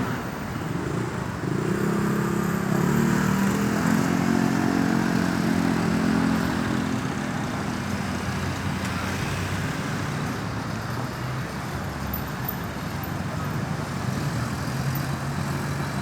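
Road traffic: a motor vehicle's engine passes, loudest from about two to six seconds in, over a steady traffic noise. Another engine grows louder near the end.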